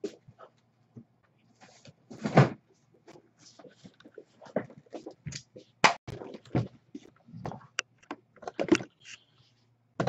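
Cardboard boxes being pulled from a stack and handled: irregular knocks, scrapes and thumps, the loudest thump about two and a half seconds in.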